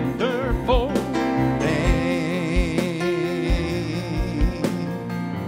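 A man singing a gospel song with a wide vibrato, holding one long note through the middle, to his own electronic keyboard accompaniment with a steady low beat.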